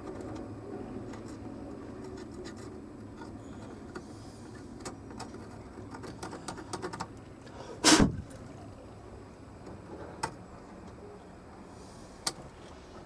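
Scattered small clicks and taps of tools being handled at a workbench, with one loud, sharp knock about eight seconds in and two lighter clicks afterwards.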